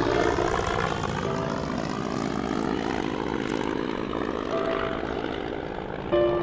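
Propeller aircraft engines running with a steady drone, with a few soft music notes underneath now and then.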